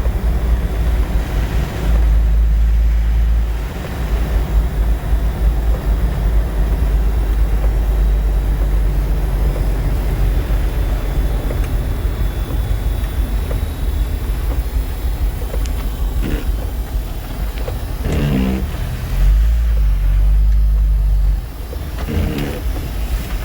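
A Jeep driving, with a low rumble of engine and road noise, mixed with gale-force wind gusting against the vehicle and microphone.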